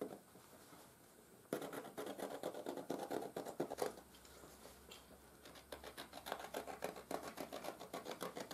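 A hand-held chert flake slicing through buckskin, a fast scratchy rasp of many short strokes. It comes in two runs, from about one and a half to four seconds in and again from about six seconds on.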